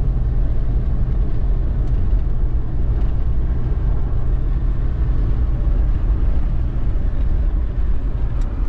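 Toyota FJ Cruiser driving on the open road: a loud, steady rumble of road and wind noise, heaviest in the low end.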